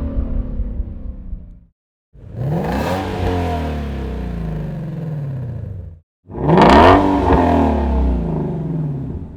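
Shelby GT350's 5.2-litre flat-plane-crank V8 running through a Borla ATAK cat-back exhaust. A fading run ends with an abrupt cutoff, then come two separate runs, each rising sharply in pitch and then falling away. The runs are split by sudden breaks.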